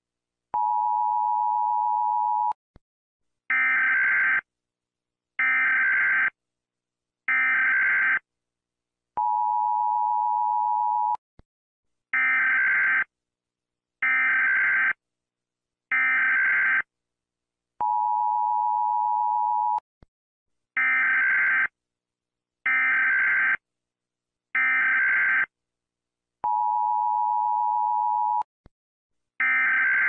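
US Emergency Alert System alarm: three short bursts of raspy digital data screech (the SAME header) followed by the two-tone attention signal held for about two seconds, the cycle repeating about every nine seconds.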